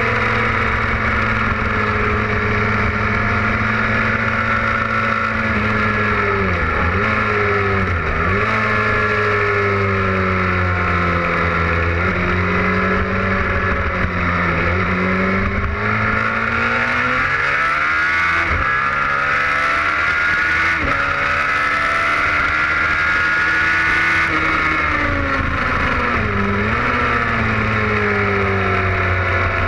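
Aprilia RSV Mille's V-twin engine run hard on a race track, its note climbing and dropping with the throttle and gear changes, with a few quick dips in pitch and a long climb in the middle, over steady wind rush.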